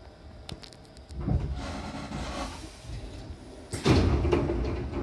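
The sliding doors of a Hankyu Kyoto Line train opening at a station stop. A few light clicks come first, then a short hiss. About four seconds in there is a loud rush as the door leaves slide apart.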